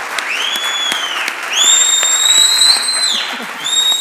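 Audience applause with piercing whistles from the crowd: a short whistle that rises and falls, then a long held one, the loudest sound, and another starting near the end.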